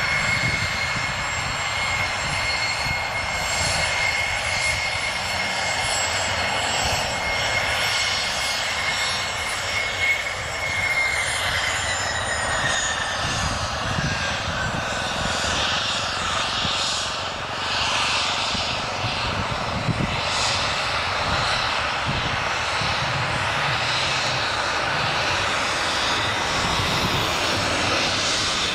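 Boeing 737-800's CFM56-7B turbofan engines running at taxi power as the airliner turns on the runway. It is a steady high whine over a broad rush, and the whine's pitch drops a little about 11 seconds in.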